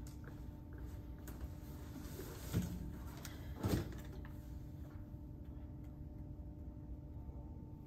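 Footsteps on a hard hallway floor, then two dull thumps about two and a half and three and a half seconds in as a person sits down on a wooden bench, the second the louder. A steady hum sounds underneath.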